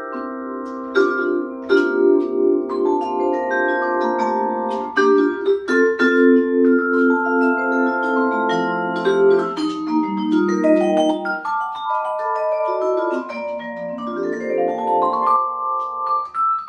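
Solo jazz vibraphone played with yarn mallets: chords and single-note lines whose notes ring on and overlap, the low notes pulsing with vibrato. A rising run comes near the end.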